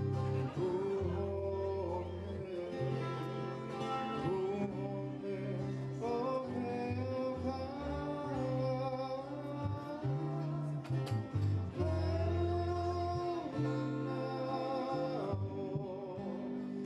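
A man singing to his own acoustic guitar accompaniment, a slow song with held, wavering sung notes over sustained low guitar notes.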